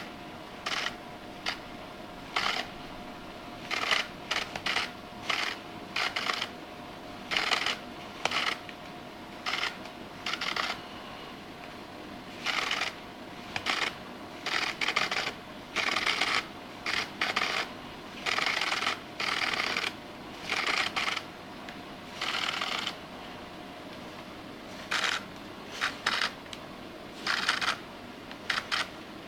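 Zoom head motor of a Nissin Di622 Mark II flashgun whirring in many short, irregular bursts as the head drives back and forth. The owner finds the noise strange.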